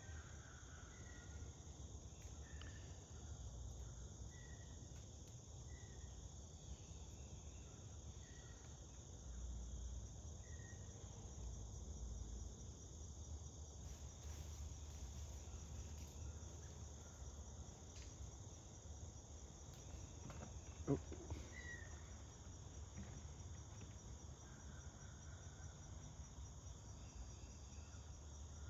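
Steady high-pitched chorus of crickets trilling without a break, with a few faint short chirps in the first ten seconds or so.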